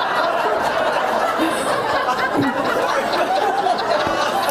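A large audience laughing together, many voices overlapping in a steady wash of laughter and chatter in a big hall.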